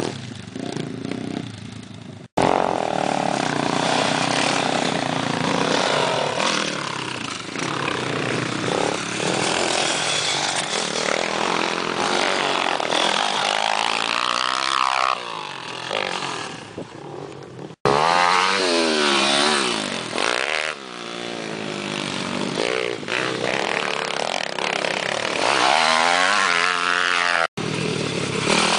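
Small dirt bikes (pit bikes) riding a dirt track, engines revving, the pitch climbing and falling again and again as they accelerate and ease off. The sound cuts out abruptly for an instant three times.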